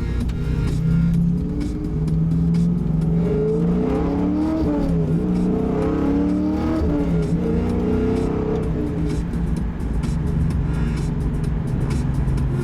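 Pontiac GTO's LS2 V8 running through a Spintech exhaust and Kooks headers, heard from inside the cabin: a steady exhaust drone, with the engine note rising and falling a few times in the middle as the engine revs up and back down, then settling back to a steady note.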